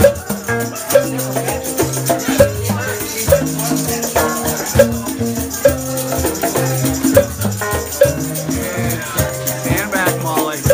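Live band playing a rhythmic, percussion-led groove: hand-played conga drums, a tambourine shaken and struck, and keyboard, over a repeating bass line.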